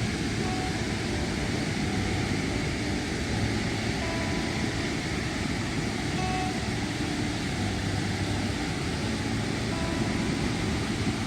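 Large waterfall roaring close up: a loud, steady rush of falling water.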